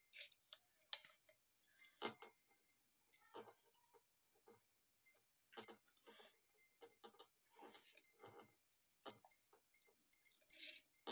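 Faint soft squelches, rustles and light taps as fingers peel the skins off boiled tomatoes in a steel bowl. The strongest taps come about two seconds in and near the end, over a steady high-pitched trill in the background.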